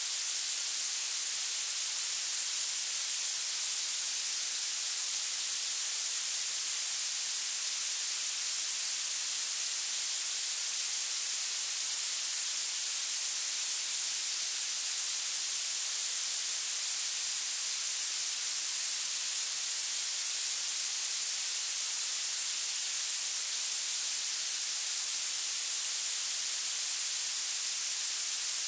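Synthetic violet noise: a steady, even hiss with its energy climbing toward the highest pitches and almost no low end.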